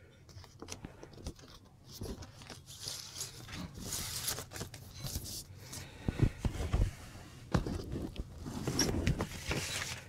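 Vinyl records and their paper and plastic sleeves being handled: rustling and crinkling as a record is put back in its sleeve and the next one picked up, with a few sharp knocks a little past halfway.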